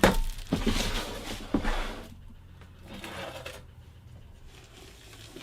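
Packaging rustling and crinkling as it is handled, with a few light knocks, mostly in the first two seconds, then a softer rustle about three seconds in.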